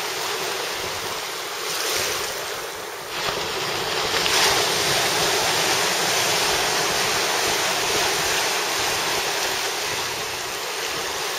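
Small waves washing in the shallows, a steady rush that swells about two seconds in and again about four seconds in, with wind on the microphone.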